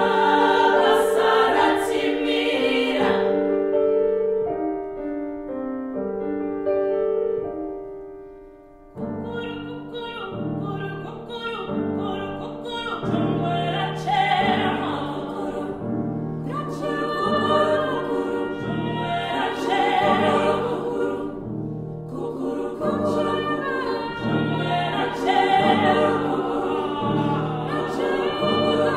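Mixed choir singing: women's voices hold long chords that fade away about eight seconds in, then lower voices come in and the full choir sings a rhythmic passage of repeated chords.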